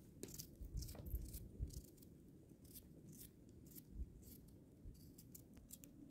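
Faint, crisp cuts of a small knife through a cucumber held in the hand, coming at irregular intervals, with a few soft thuds of handling.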